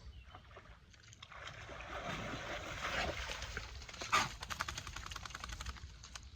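River water sloshing and splashing, with a fine rapid patter in the middle and one sharper splash about four seconds in.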